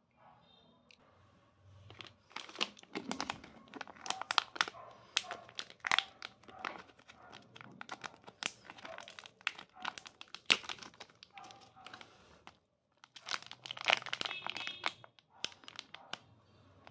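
Foil-lined plastic snack packet crinkling and tearing as it is opened by hand: dense rapid crackles starting about two seconds in, a short pause, then a second spell of crinkling.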